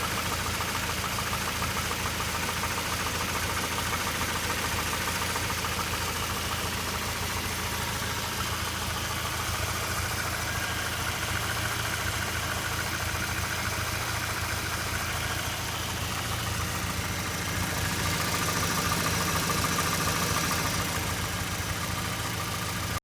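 ZMZ 409 inline-four petrol engine of a UAZ 3159 running steadily with a fast knocking rustle. The noise comes from a piston skirt scored on one side in the second cylinder. It gets a little louder for a few seconds about three-quarters of the way through.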